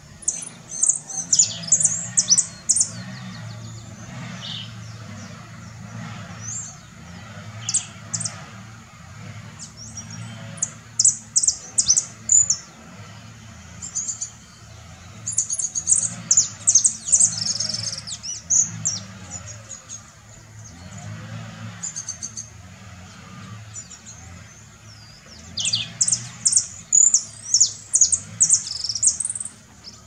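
Saffron finch singing: about five phrases of quick, high chirping notes, with short pauses between them.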